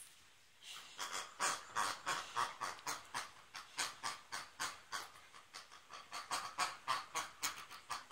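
Bernese mountain dog panting quickly, about two to three breaths a second.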